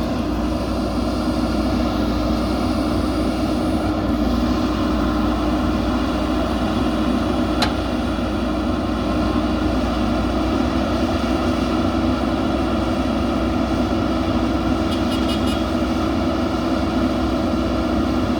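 JCB backhoe loader's diesel engine running steadily under work, with a single sharp click about halfway through.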